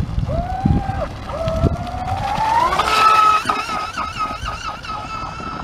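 Electric motor of a 24-inch RC unlimited hydroplane boat whining under throttle. Its pitch rises and falls briefly in the first second, then climbs steadily and holds a high, steady whine from about three seconds in as the boat runs flat out.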